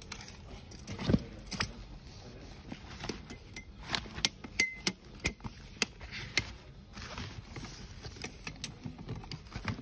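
Retractable tape measure being pulled out and laid along a stroller seat: a string of sharp clicks and light rattles, bunched in the middle.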